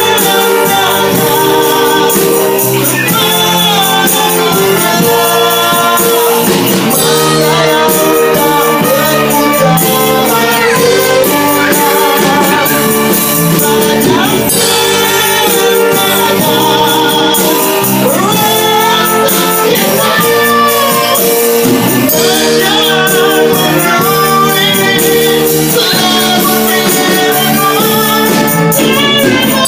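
A man sings a pop-rock ballad into a microphone with a live band of saxophones, trombone, cello and electric guitar.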